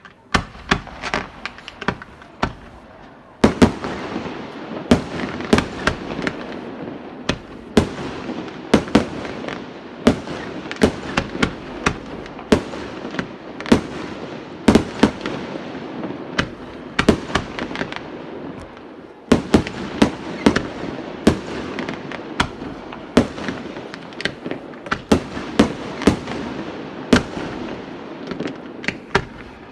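Aerial fireworks display: a rapid, continuous string of sharp bangs over steady crackling. The barrage thickens and grows louder about three and a half seconds in, and again around nineteen seconds.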